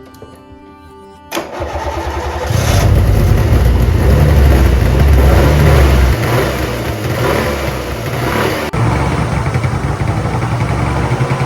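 Subaru R-2's air-cooled 360cc two-stroke twin cranked and catching about a second in, then revved for several seconds before settling to a steadier, lower running speed near the end.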